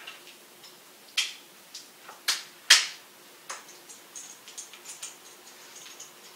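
Kitchen handling noises: a handful of sharp clicks and scrapes, the loudest near the middle, then a run of light quick ticks as a small spice jar of turmeric is handled and shaken over a pot.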